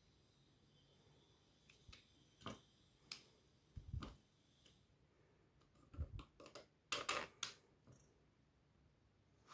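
Near silence broken by scattered light clicks and knocks as the wooden wing arms of a model ornithopter are handled and fitted onto its gear linkage, with a quick cluster of taps about seven seconds in.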